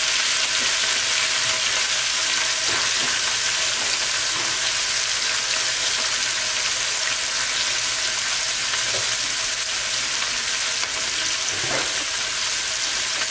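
New York strip steak searing in butter and oil in a nonstick frying pan: a steady high sizzle of frying, with a few small pops.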